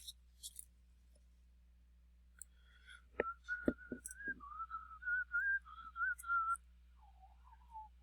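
A person whistling a wavering tune, starting about three seconds in and dropping lower near the end. A few sharp clicks and taps come just before and as the whistling begins.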